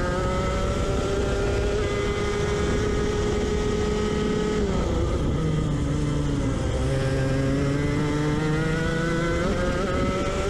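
Racing kart engine heard from on board, pulling hard with its pitch climbing steadily, then dropping for about two seconds in the middle as the driver lifts off for a corner, before climbing again under full throttle.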